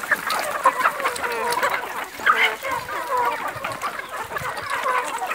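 A flock of free-range chickens clucking while feeding, many short calls overlapping.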